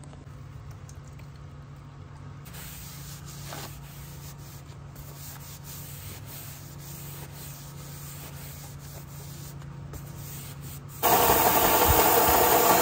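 Faint rubbing over a low steady hum as a cloth wipes a wooden handle. About eleven seconds in, a Central Machinery bench belt sander comes in abruptly and loud, with a gloved hand pressing a small piece against the running belt.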